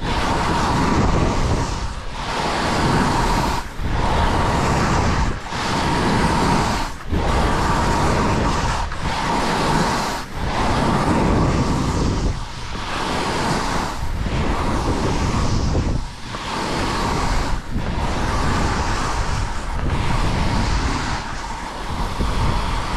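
Wind rushing over the camera's microphone and skis hissing over snow during fast downhill turns. The rush dips briefly about every one and a half to two seconds.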